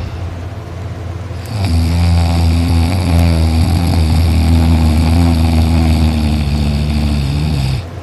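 A man snoring loud in his sleep: one long, drawn-out snore sets in about a second and a half in, holds for some six seconds and cuts off suddenly, over a steady low hum.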